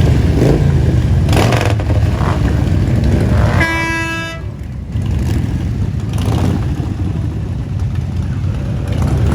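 Parade vehicles' engines running with a steady low rumble, and a single horn honk of just under a second near the middle.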